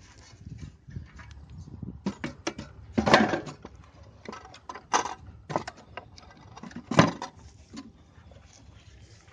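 Homemade wooden box trap being handled: a series of sharp knocks and small metallic clinks from its boards and metal fittings, the loudest about three seconds in and again about seven seconds in.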